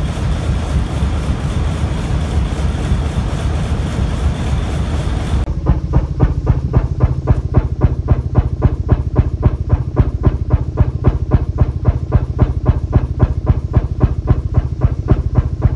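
Large vertical Fairbanks-Morse stationary engine running: first a dense, steady din heard close to the engine. Then, after a cut about five seconds in, it is heard at its exhaust stack as sharp, even exhaust pops about four times a second.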